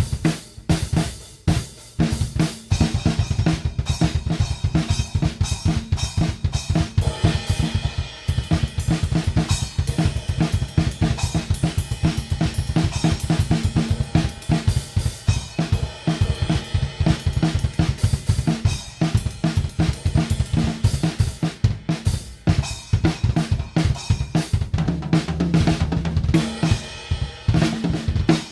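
Drum kit played continuously in a busy groove: bass drum, snare, hi-hats and crash cymbals struck in quick succession. The kit has two hi-hats, three crash cymbals and a splash.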